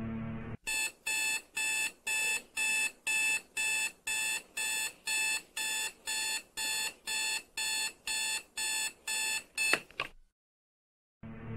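Samsung touchscreen mobile phone beeping an electronic alert, short bright beeps about twice a second, which stops abruptly with a click as its screen is pressed. Music comes in just before the end.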